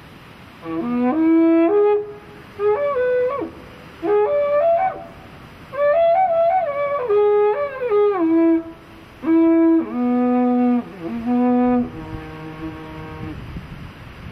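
A handmade carnyx, the Celtic bronze-age war trumpet, is played in short melodic phrases with brief pauses between them, its notes stepping up and down in pitch. Near the end comes a quieter held note.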